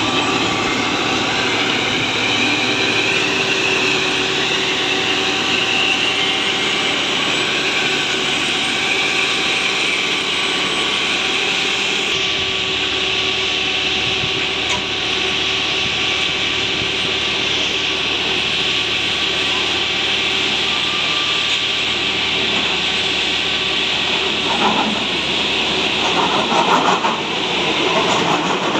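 Diesel engine of a Plasser track-laying machine train running steadily as the train rolls past on the rails, a little louder for a few seconds near the end.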